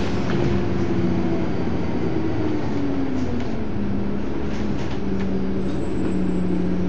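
Volvo Olympian 12M double-decker bus's diesel engine running, heard inside the bus: its pitch falls over the first three seconds as the bus eases off, then holds steady.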